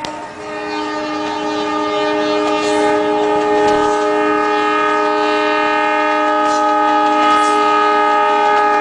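Diesel locomotive's air horn sounding one long, steady multi-tone blast, growing louder over the first couple of seconds as the train draws near and passes, with a few short clicks over it.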